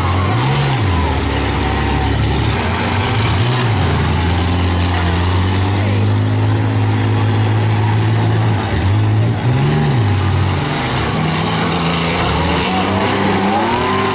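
Demolition derby minivan and SUV engines running loud and revving up and down in repeated swells as the cars push against each other.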